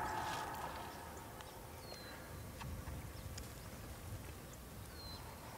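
Quiet open-air ambience: a faint steady hiss as the tail of the preceding music dies away in the first second, with a short high bird chirp twice, about two and five seconds in, and a few faint clicks.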